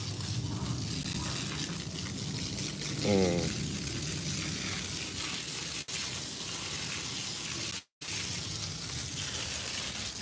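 Garden hose spraying water onto a lawn, a steady hiss. A brief voice sound breaks in about three seconds in, and the audio drops out for a moment near the end.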